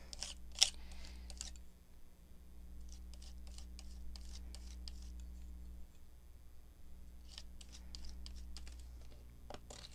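Irregular light clicks, taps and scrapes of paper and craft tools being handled on a work table, over a steady low hum.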